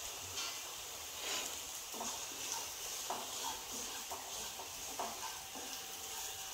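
Onions, shallots and curry leaves sizzling in a nonstick frying pan, a steady hiss broken by several light knocks and scrapes as they are stirred.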